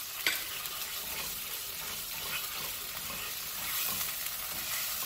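Stir-fry sauce sizzling in a hot wok over medium-high heat, heating up toward a simmer, while a wooden spoon stirs it; a steady hiss, with one sharp knock of the spoon on the pan just after the start.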